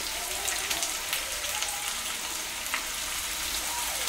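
Fish slices shallow-frying in hot oil in a non-stick pan: a steady sizzle with scattered crackles and pops, and a louder burst of sizzling near the end as another slice goes into the oil.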